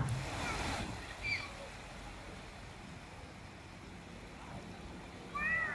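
Quiet seaside ambience: a soft, even wash of shore noise, slightly louder in the first second, with short bird chirps about a second in and again near the end.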